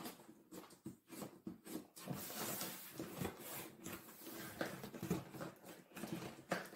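Hands handling a long cardboard box: irregular light taps, scrapes and rustles, with a longer scratchy stretch about two to three seconds in as the fingers rub and pick at the box.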